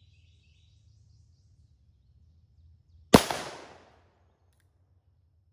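A single shot from a North American Arms PUG .22 Magnum mini-revolver: one sharp crack about three seconds in, with a short echoing tail.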